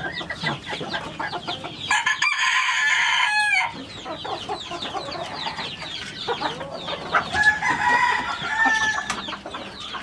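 Roosters crowing: one long crow about two seconds in and another about seven seconds in. Underneath is a steady din of clucking and chirping from many birds.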